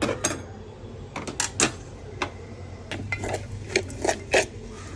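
Kitchen utensils clinking against a dish in about ten sharp, irregular knocks, while chilli pickle is being handled.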